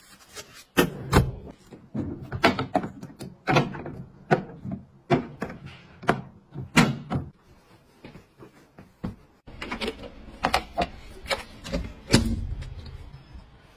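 Clicks, taps and knocks of hard plastic items being handled and set down, about one or two a second. A faint low hum joins them for the last few seconds.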